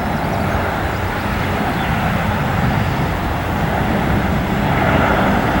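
Jet engine noise of a Boeing C-17 Globemaster III on short final, a steady rumble and roar that slowly grows louder as it comes in to land.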